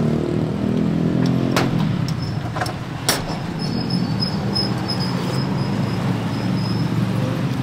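An engine running steadily with a low hum, with a few sharp clinks of a metal spoon against a steel soup bowl between about one and a half and three seconds in.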